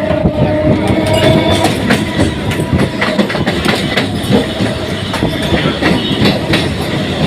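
Suburban electric local train running along the track, its wheels clattering over the rail joints in a continuous run of clicks over a steady rumble.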